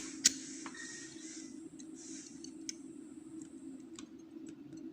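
Small metal tool clicking and scraping against the circlip on the back of an ASSA Oval lock cylinder, prying to get the clip off: one sharp click just after the start, then scattered light clicks, over a steady low hum.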